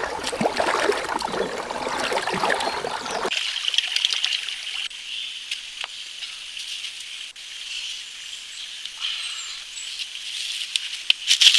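Shallow river water trickling and rushing over rocks, full and noisy for about three seconds, then cutting off abruptly to a thinner, steady high-pitched sound with a brief loud burst near the end.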